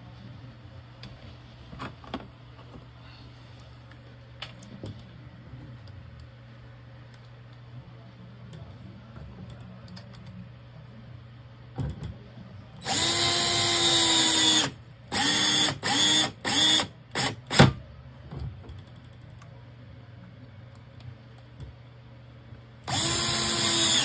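DeWalt cordless drill/driver driving screws: one run of about two seconds whose pitch sags at the end as it takes load, then four short trigger bursts in quick succession and a sharp click. Another run of about a second comes near the end, after a stretch of faint handling noise.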